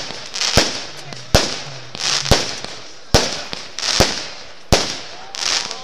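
Aerial fireworks going off in a quick, regular run: about six loud bangs a little under a second apart, each preceded by a short hiss.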